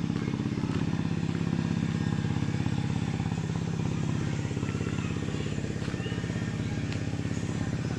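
Small engine running steadily at an even speed, with a fast, regular pulse.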